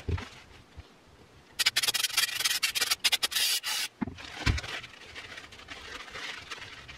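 A stiff brush scrubbing gunk off the armature of a DeWALT 20V reciprocating saw's motor. It goes in quick, loud scratchy strokes for about two seconds, then two low knocks, then lighter scrubbing.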